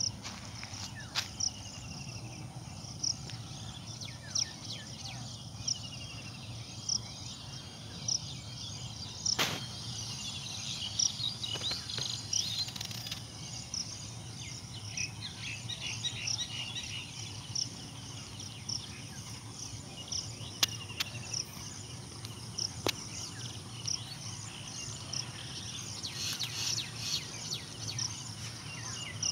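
Outdoor ambience of insects and birds: a short high-pitched chirp repeats at a steady pace, with scattered bird chirps around it. A few sharp clicks stand out, the loudest about twenty seconds in.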